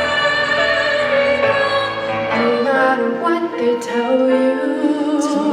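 Music with a singing voice in a classical, operatic style, holding notes with a wavering vibrato over accompaniment.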